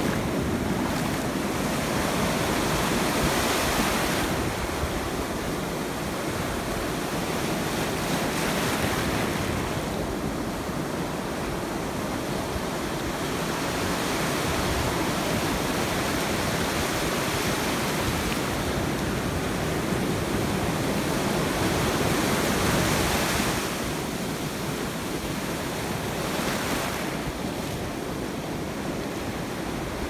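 Ocean surf breaking and washing through shallow water close by. It is a continuous rush of churning water and foam that swells and eases every few seconds as waves come in.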